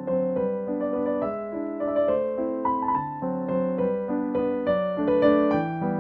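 Background piano music, a melody of single notes changing several times a second.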